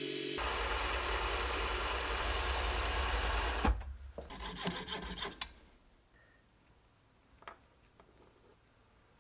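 A hand file rasping against a brass part spinning on a mini lathe, a steady scraping that stops with a sharp click about three and a half seconds in, followed by a few rattles. After that, only faint small clicks from handling small brass parts.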